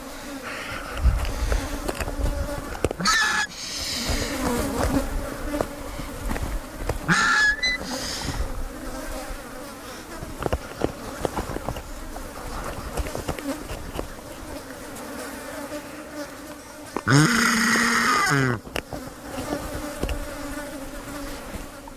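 Vultures feeding on a zebra carcass, heard at very close range through microphones clipped to its rib cage. Harsh, squealing calls break out about three seconds in and again around seven seconds, and a louder burst of calls comes near the end, over a steady low buzz.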